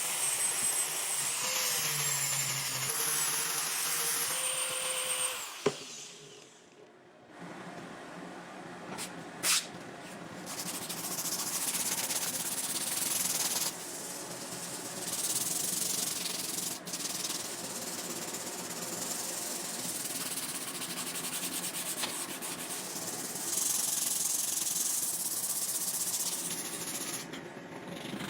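Abrasive sanding and grinding of a brass knife blade, a steady rubbing noise. About six seconds in it stops with a click for a couple of seconds, then resumes with a few sharp clicks.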